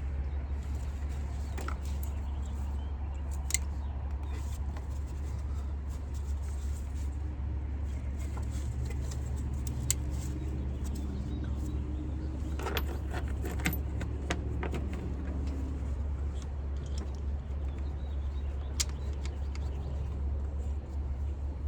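Scattered light clicks and taps of ignition coil packs being handled and pressed down onto the spark plugs of a four-cylinder engine, over a steady low hum.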